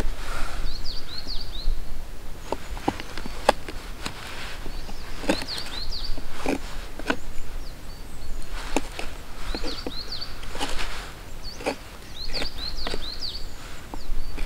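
Knife blade shaving a wooden branch in repeated irregular strokes, each a short scrape or sharp click as the edge bites and slips along the wood. A small bird calls in quick high chirpy phrases several times over it.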